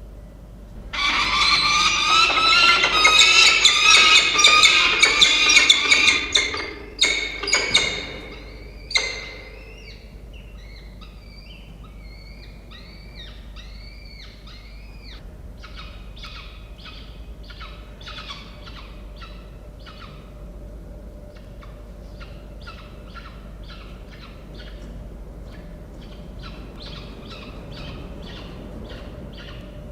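Peregrine falcons calling at the nest during a food delivery. Loud, harsh, rapidly repeated calls run for about eight seconds. They give way to quieter arched calls, then a long run of short repeated calls.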